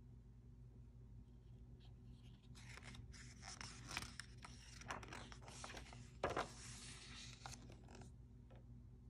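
Page of a hardcover picture book being turned by hand: faint paper rustling and sliding for about five seconds, starting a couple of seconds in, with one sharper slap about six seconds in.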